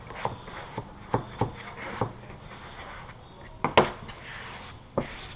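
Squeegee strokes rubbing and scraping over vinyl stripe film on a car's deck lid, with irregular light taps and one louder knock a little under four seconds in.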